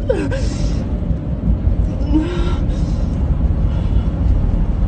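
Steady low rumble of a vehicle on the move. Over it come a person's short distressed whimpers, one falling in pitch just after the start and another about two seconds in.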